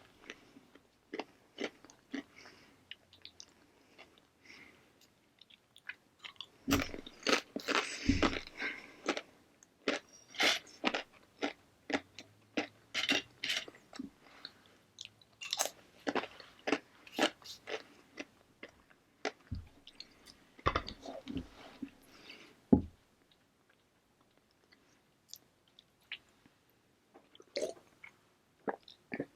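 Crunching and chewing of blue corn tortilla chips, in dense runs of crisp crunches with quieter pauses, and a few dull low thumps among the bites.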